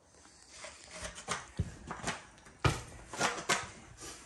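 Irregular knocks and clunks of work on a mobile home's subfloor, half a dozen over a few seconds, the loudest about two and a half seconds in.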